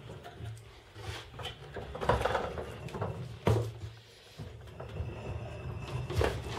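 A wooden table saw stand on casters being pushed across wooden floorboards: wheels rolling, with scattered knocks and rattles from the stand and saw, and a sharp knock about three and a half seconds in.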